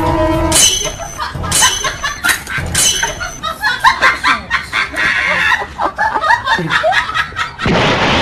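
Edited-in comedy soundtrack: three quick high falling whistle-like sweeps about a second apart, then a stretch of laughter, with a loud noisy burst near the end.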